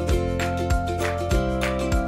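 Background music with a steady beat under held tones.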